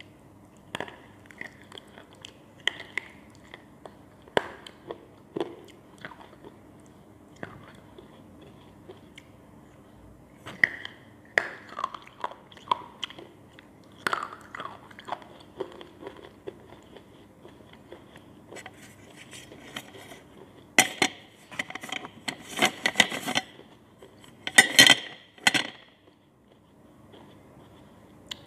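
Slate pencils being bitten and chewed: short, sharp crunches scattered through, coming thickest and loudest in a run near the end.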